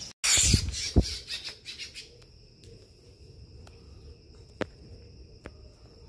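Crickets singing a steady high-pitched trill, with a few sharp clicks. For the first two seconds it is covered by loud rustling and knocks from handling.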